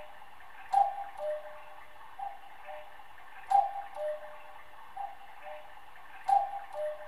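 Cuckoo clock calling its two-note 'cu-ckoo', a higher note then a lower one, over and over about every second and a half, with a sharp click at every other call.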